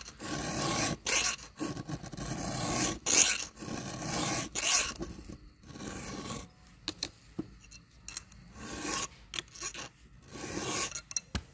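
Round file rasping across a saw chain's cutter teeth in repeated strokes about one a second, pausing for a few seconds in the middle with a few light clicks, then resuming near the end: the chain being sharpened by hand.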